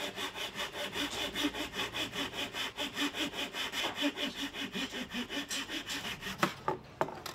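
Small fine-toothed hand saw cutting through a thin wooden sheet in quick, even back-and-forth strokes, about five or six a second. The sawing stops near the end, followed by a few separate knocks.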